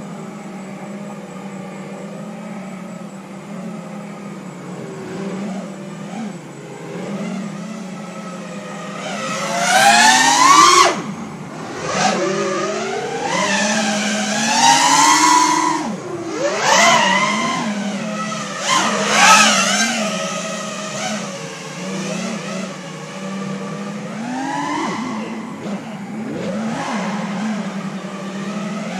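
Brushless motors of a 5-inch FPV quadcopter (Emax RSII 2306 2400kv, tri-blade props) running at a steady hum, with repeated rising and falling whines as the throttle is punched and eased. The loudest come about ten, fifteen and nineteen seconds in.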